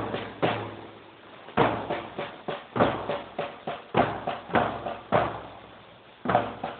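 Marching band drums, bass drums and snare drums, beating a marching rhythm in short runs of sharp hits, with a pause of about half a second a second in and a longer pause near the end.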